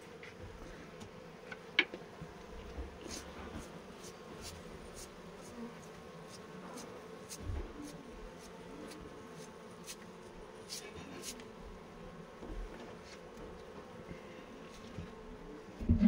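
Honeybees buzzing steadily around an opened box hive, a continuous hum, with scattered light clicks and taps and one sharp click about two seconds in.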